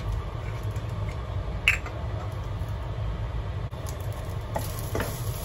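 Wooden spatula stirring and turning damp raw long-grain rice in a wok as it is dry-fried in a little oil, with a sharp knock of the spatula on the pan about a second and a half in and a lighter one near the end, over a steady low hum.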